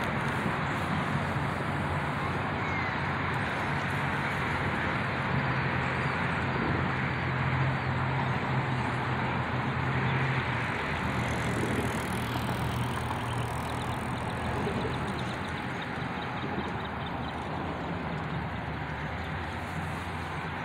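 A motor vehicle's engine running, heard as a low steady hum over outdoor traffic noise; its note drops about halfway through and the sound slowly fades toward the end.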